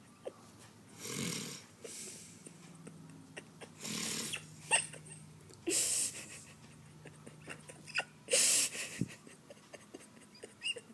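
A sleeping woman snoring: four rough, noisy breaths a few seconds apart, with small clicks between them.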